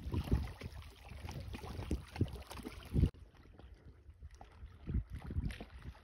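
Small waves lapping and slapping at the water's edge, with wind rumbling on the microphone. About three seconds in, after a louder slap, the sound abruptly drops to a quieter lapping.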